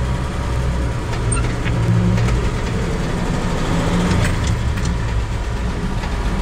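1953 truck's engine running as the truck pulls away and drives slowly, heard from inside the cab. The engine note swells briefly about two seconds in and again about four seconds in.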